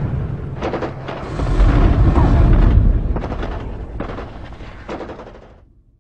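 Intro sound effects of war: a deep rumble of booms with sharp cracks like distant shots. It swells about a second and a half in, then fades out to silence near the end.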